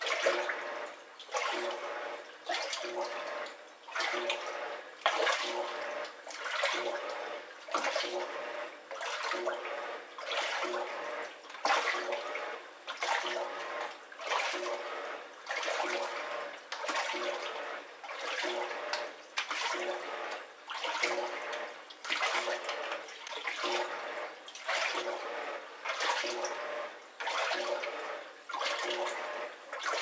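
Top-loading washing machine agitating: the drum's pulsator swings back and forth, each stroke a swish of water with a motor hum, about once a second. The rhythm sounds like a voice shouting "Obahan!" over and over.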